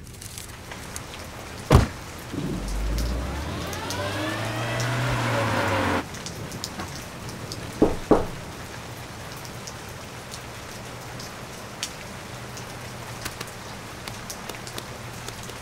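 Two quick knocks on a front door over a steady hiss like light rain. Earlier there is a single sharp thump, then a low rumble with a sweeping higher whoosh that swells, falls away and cuts off abruptly.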